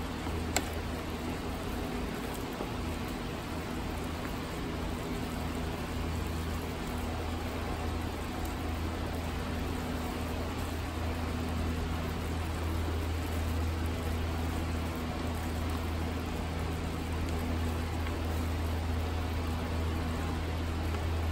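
Thick cream sauce simmering in a frying pan on a gas stove, a steady hiss over a steady low hum, with one sharp click about half a second in.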